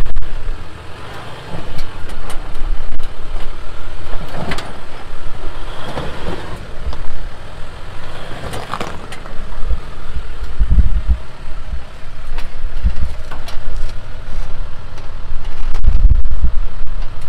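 Off-road vehicle engine running, with surges of heavier low rumble about ten and sixteen seconds in.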